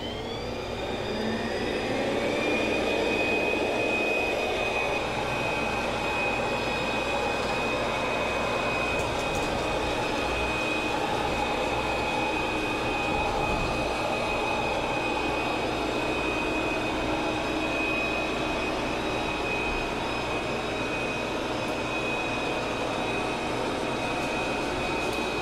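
Coredy L900 robot vacuum cleaner starting a cleaning run. Its suction fan spins up with a rising whine over the first couple of seconds, then runs steadily with a high whine over a rushing hiss, on a newly fitted battery.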